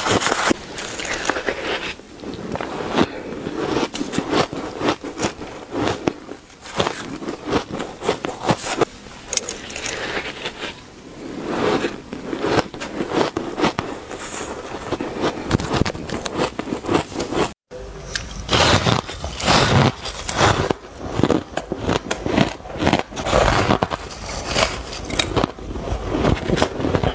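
Close-miked biting and chewing of ice: dense, rapid crunching and squeaking as teeth break through hard ice. Near two-thirds of the way in there is a momentary dropout, and the crunching carries on after it.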